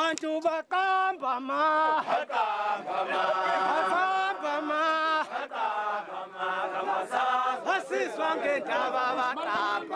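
Zulu chanting by men's voices: long held, wavering notes, several overlapping in the middle, broken by short shouted phrases.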